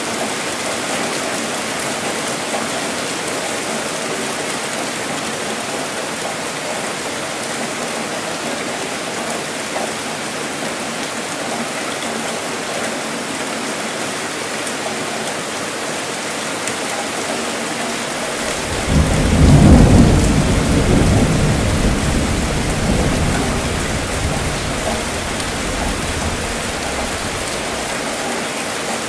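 Steady rainfall, with a roll of thunder about two-thirds of the way through: it starts suddenly, peaks within a couple of seconds and rumbles away over several more.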